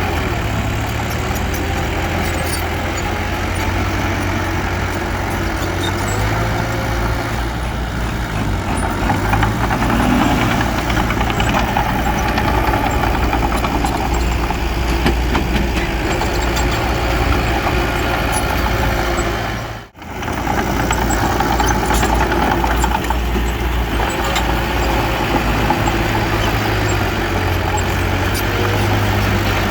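Heavy diesel engine of earthmoving machinery running steadily at low revs, with a deep hum and clattering. About two-thirds through, all sound cuts out for a split second.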